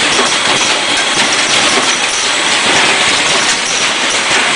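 Automatic blister sealing and cartoning machine running: a steady, dense mechanical clatter of its pneumatic cylinders and moving parts.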